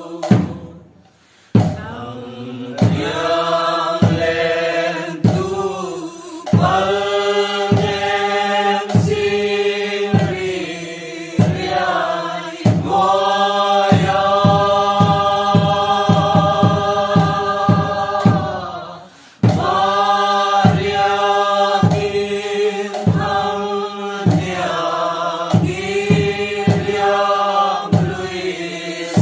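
Song for the Mizo Chheih lam dance: voices singing and chanting in long held notes, phrase by phrase, over a steady low tone, with a percussion beat. The song breaks off briefly about a second in and again about nineteen seconds in.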